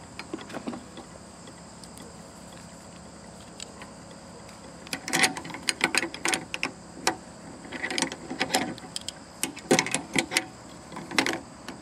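Metal padlocks clicking and rattling against a steel hasp as they are handled and set. There are irregular clusters of sharp clicks from about halfway in.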